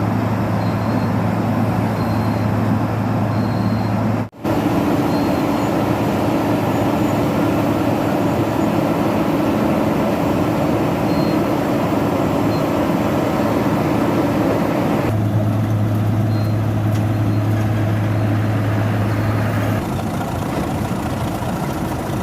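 Asphalt milling machine at work: a heavy engine running steadily under dense, continuous cutting noise. There is a brief dropout about four seconds in, and the low hum shifts about fifteen seconds in.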